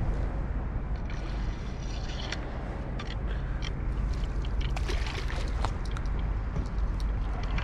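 Water sloshing and lapping, with a steady low rumble and scattered light clicks.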